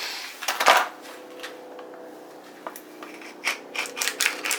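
Hand tools being handled: a loud scrape and clatter under a second in, then a run of sharp metallic clicks near the end, like bits and sockets being picked through.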